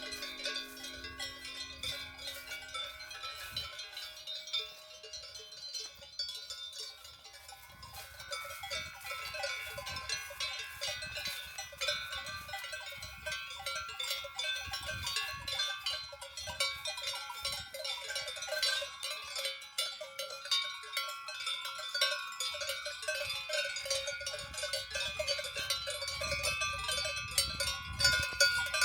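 Bells on grazing cows, many of them clanking irregularly and overlapping, growing louder toward the end.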